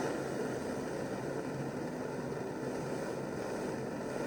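Butane torch burning, a steady rushing hiss of gas and flame, set to a small flame.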